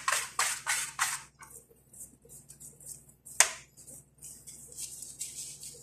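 Hands slapping and patting a ball of soft dough in a metal mixing bowl: a quick run of wet slaps at first, about four a second, then softer pats with one sharp smack about three and a half seconds in.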